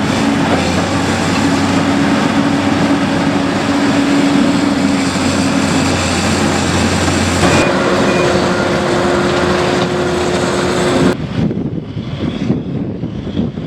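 Heavy diesel construction machinery running close by, a loud steady engine drone. Its pitch shifts about seven and a half seconds in, and near the end it drops off suddenly to a quieter, duller rumble.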